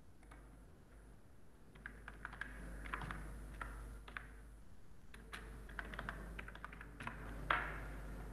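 Computer keyboard typing: an uneven run of keystrokes starting about two seconds in, with the loudest key strike near the end.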